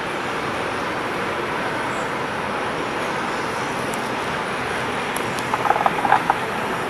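Steady rushing drone of an inland motor tanker passing on the river, with a brief cluster of high chirps about five and a half seconds in.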